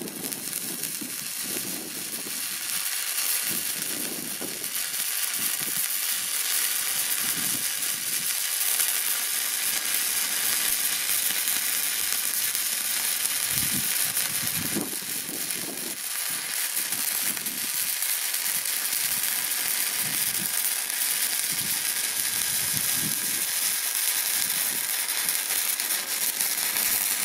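Stick (MMA) welding arc from an inverter welder set to 55 A, a 2 mm electrode burning on 2 mm steel: a steady, unbroken crackling sizzle.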